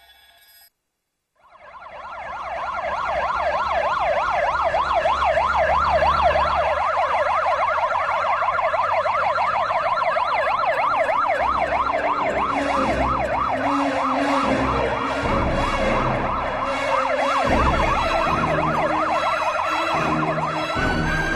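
Ambulance siren in a fast yelp, its pitch sweeping quickly up and down several times a second; it comes in about a second and a half in, after silence, over a low vehicle rumble.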